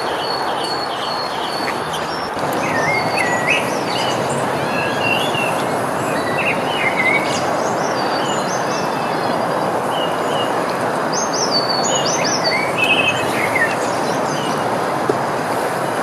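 Steady rush of water from a small waterfall over a weir, with small birds chirping in short high bursts at intervals above it.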